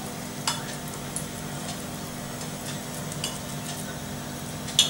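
Fingers pressing grated raw potato shreds into a small metal strainer: soft, moist crackling and rustling of the shreds, with a few light metal clicks, the sharpest about half a second in and just before the end.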